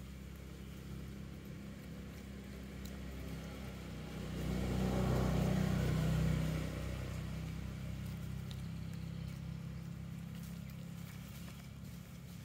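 A steady low engine hum, swelling for about two seconds in the middle as a motor vehicle passes, then fading back.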